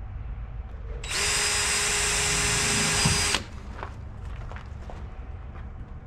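DeWalt 20V cordless drill/driver running for about two seconds with a steady whine, driving a screw into a hull strip plank, then stopping abruptly.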